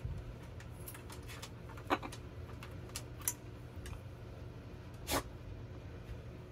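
A few sharp clicks and taps from a macaw's beak and claws knocking on dishes and the countertop as it eats, over a steady low hum.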